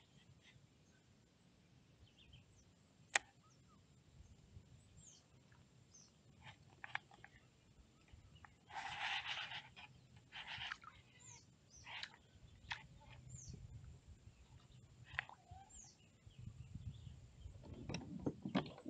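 Quiet open-air ambience around a fishing kayak: scattered small knocks and clicks, two short rushing bursts around the middle, and a few faint, short, high bird chirps.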